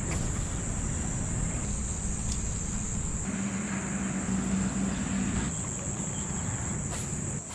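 Insects chirring in a steady, high, even drone over a low outdoor rumble. A low hum joins from about three seconds in and fades about two and a half seconds later.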